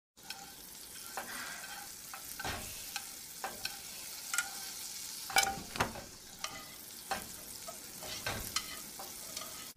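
Beaten egg sizzling in a hot frying pan as it is stirred and folded, with irregular clicks and scrapes of chopsticks and a spatula against the pan. The loudest knock comes just past halfway.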